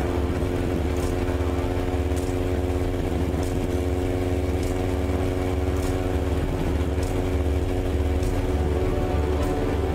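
Motorcycle engine running steadily as the bike cruises along, a low, even, pulsing rumble.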